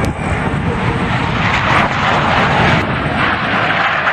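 Jet engines of the Blue Angels' F/A-18 Hornets taking off and passing low in diamond formation: a loud, steady rushing jet noise, a little louder from just after the start.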